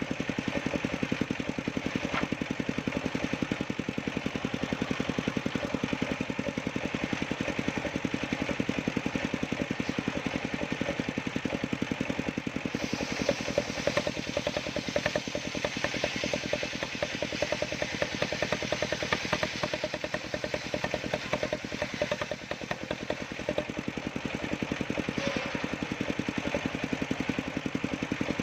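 Small engine of a homemade sawmill running steadily. About halfway through, a higher hiss joins for roughly twelve seconds, then drops away.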